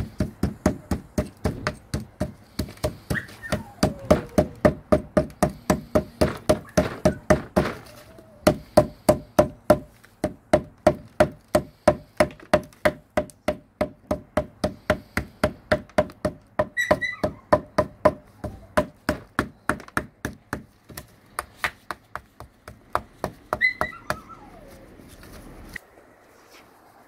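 A small hammer bashing a soil-caked clump of corroded WW2 bullets in a plastic paddling pool: rapid, even strikes, about four a second, that stop shortly before the end.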